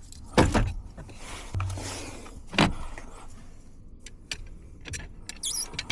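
Scattered knocks and clicks of something being handled at a car, with a sharp knock about half a second in and a brief high warbling chirp near the end.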